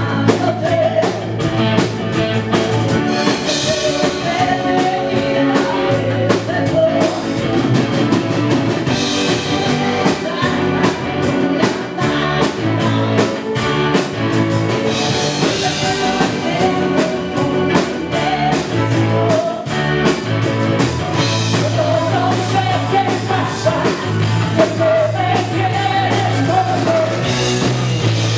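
Live rock band playing: a woman sings lead over electric guitar, electric bass, a drum kit and keyboards.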